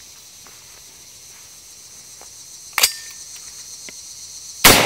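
Single shot from an Aero Precision AR-10 semi-automatic rifle in .300 Winchester Short Magnum near the end: a loud crack with a long decay. Earlier, about three seconds in, a short sharp click, and insects drone steadily throughout.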